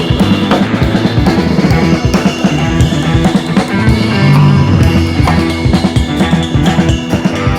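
Rock music with a driving drum kit, bass drum and guitar.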